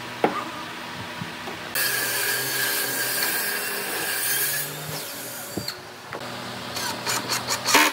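Cordless drill boring a pilot hole into a wooden table top, running steadily for about three seconds from about two seconds in. Near the end, a quick run of short power-tool bursts.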